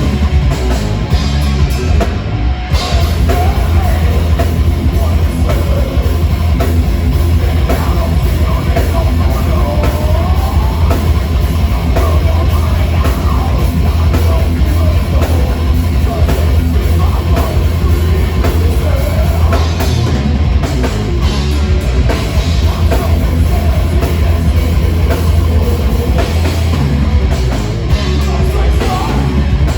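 Heavy metal band playing live and loud, the drum kit driving under a dense, heavy low end.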